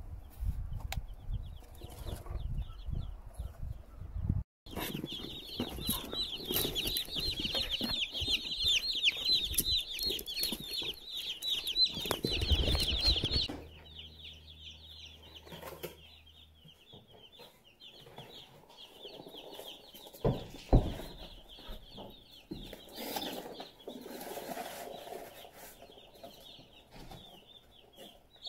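A crowd of day-old meat chicks peeping. The peeping is dense and loud for several seconds, then thinner and softer for the rest, with low rumbling handling noise at the start and a sharp knock about two-thirds in.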